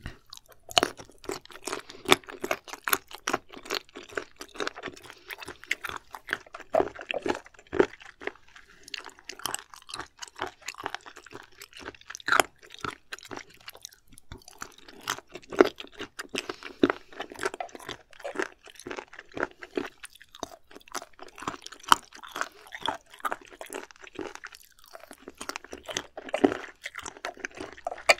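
Close-miked chewing of firm raw shellfish sashimi: crunchy, wet bites and mouth clicks in quick succession, with a couple of brief pauses.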